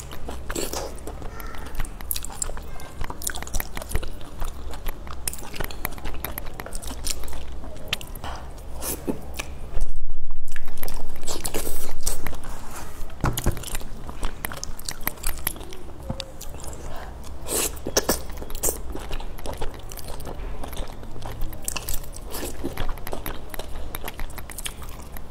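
Close-miked chewing and biting of slippery wide flat noodles and squid in a thick sauce, a steady run of small wet clicks. About ten seconds in there is a loud low rumble lasting about two seconds.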